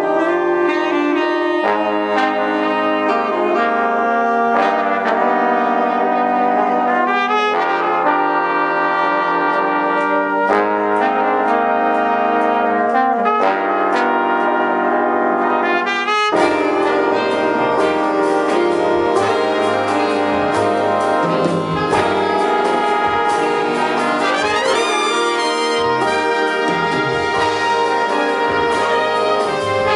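Big band brass section of trumpets and trombones, with woodwinds and drums, playing loud held chords that change every second or two. About halfway through, the full band breaks into a denser, busier passage.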